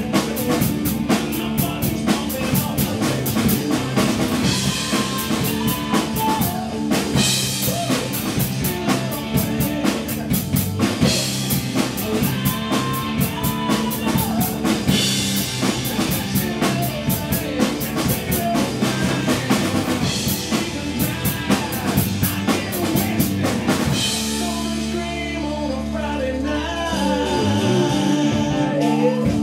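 Rock drum kit played along with a rock song recording that has vocals and guitar. About 24 seconds in the drums and cymbals stop and the song carries on with guitar.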